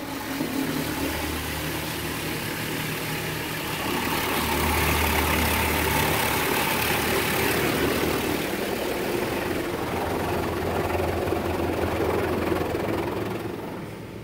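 Ryko SoftGloss Maxx 5 soft-touch car wash working over the car, heard from inside the cabin: spinning foam wrap brushes and water spray wash against the body and glass over a steady motor hum. It starts abruptly, gets louder a few seconds in, and drops away near the end.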